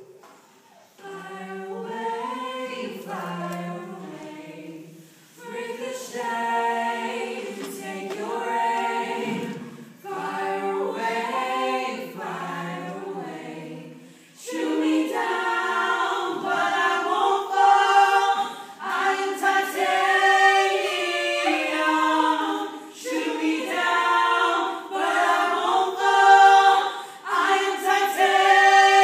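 A group of voices singing a cappella, without instruments. Short phrases with gaps between them at first, then fuller and louder from about halfway.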